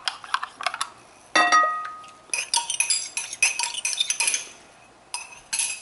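A metal spoon clinks and scrapes against a small glass cup and a glass mixing bowl while the dissolved yeast is scraped out. One clear ringing clink comes about a second and a half in, followed by a busy run of quick clicks and scrapes.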